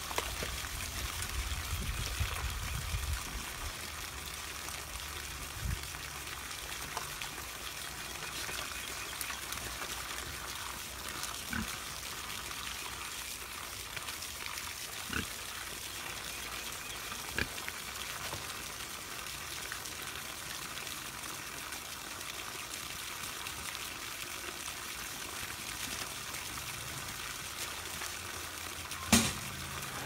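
Water from a garden hose splashing steadily into a muddy pig pen, a constant hiss, with a few short sounds from the pigs now and then. A brief louder knock comes just before the end.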